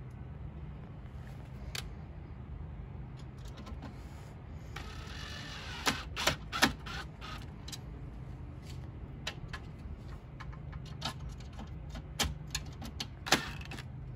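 Cordless drill/driver running briefly about five seconds in, then a string of sharp clicks and knocks from handling the screen door's metal frame and its roller screws.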